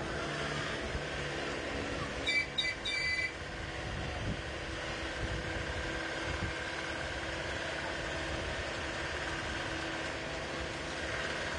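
Tourist road train's engine running with a steady drone as it carries the open passenger wagon along. About two seconds in, a quick run of a few short high beeps rises above it.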